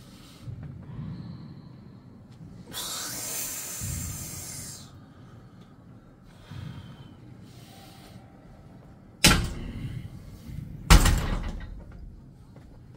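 A hiss lasting about two seconds, then two sharp knocks or clanks about a second and a half apart, each dying away briefly, the second the loudest.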